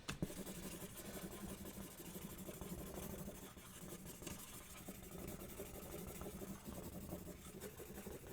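Steady scratching and rubbing at the shipping label on a cardboard box.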